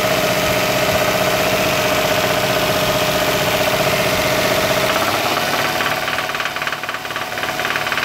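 Toyota Sienna 3.0-litre V6 idling with a knock from the bottom end, which the mechanic diagnoses as worn rod bearings. The engine's note changes about five seconds in, while one ignition coil connector is being unplugged and plugged back in to cut a cylinder.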